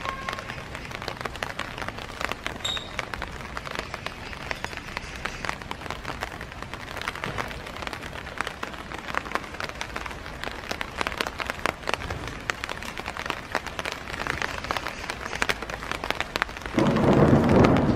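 Rain falling steadily, with many separate drops ticking and pattering on nearby surfaces. Near the end a sudden louder, deeper rumbling noise comes in over the rain.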